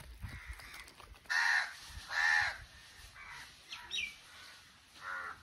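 A crow cawing: two loud caws close together about a second and a half in, a few fainter calls after, and another caw near the end.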